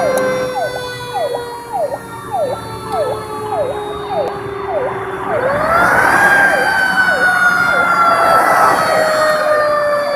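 Fire truck sirens wailing together. One yelps in quick downward sweeps about twice a second over a slowly falling steady tone. Another winds up in pitch about five seconds in and then slowly drops.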